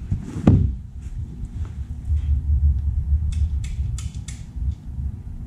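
Handling of LED light pods against a mower's steel body: a thump about half a second in, then a few short clicks and rustles about three to four seconds in, over a steady low hum.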